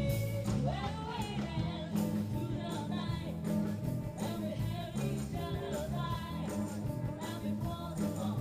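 Live band playing a rock song: a singer over a strong bass line and a steady drum beat.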